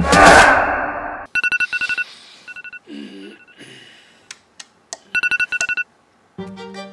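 A loud whoosh, then a mobile phone's alert tone: quick runs of short electronic beeps, repeated several times. A tune starts near the end.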